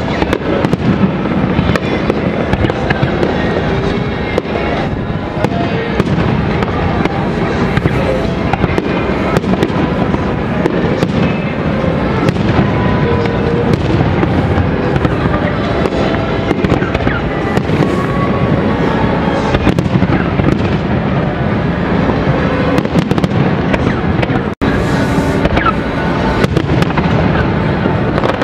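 Fireworks display: aerial shells launching and bursting in a continuous run of bangs and crackles. The sound cuts out for an instant about three-quarters of the way through.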